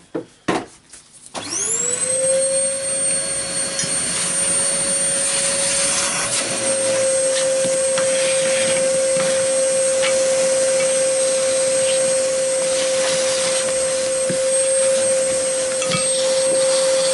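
Electric vacuum cleaner switched on about a second in, its motor spinning up quickly to a steady whine with a rush of air, running on, with light knocks and rubbing as dust is cleaned out of the sander.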